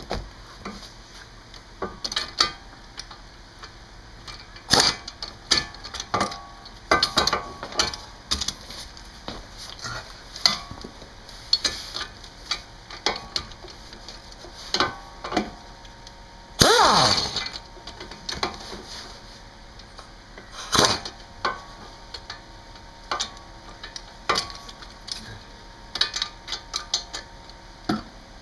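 Metal hand tools clinking and knocking against the car's brake and suspension parts in scattered, uneven strikes. About two-thirds of the way through comes one louder, longer metallic squeak that falls in pitch.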